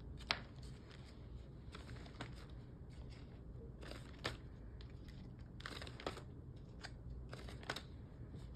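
Clear plastic zip-top specimen transport bag crinkling and rustling in gloved hands as blood collection tubes are put into it, with scattered short crackles and small clicks.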